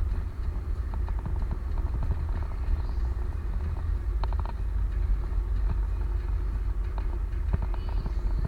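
Steady low road rumble of a moving vehicle, with scattered light rattles and clicks.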